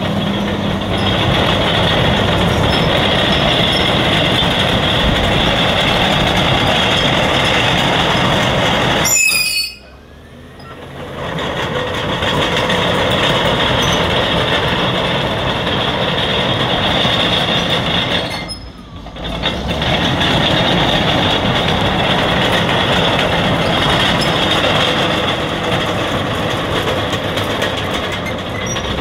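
Caterpillar D6R crawler bulldozer on the move, its diesel engine running under the clatter and high squeal of its steel tracks. The sound drops away abruptly twice, about nine and eighteen seconds in, and quickly returns.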